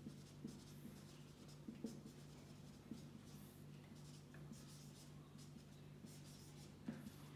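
Faint marker-pen strokes on a whiteboard: short, light scratches and taps as letters, a box and an arrow are drawn, over a low steady hum.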